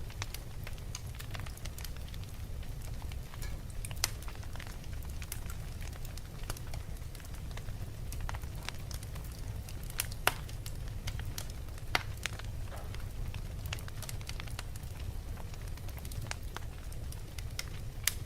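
Wood fire burning in a fireplace: a steady low rumble of the flames with scattered crackles and pops, a few sharper pops standing out.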